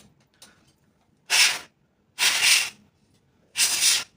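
Three short hissing bursts of air, about a second apart, blowing dust out of a mini PC's heat sink and fan vents.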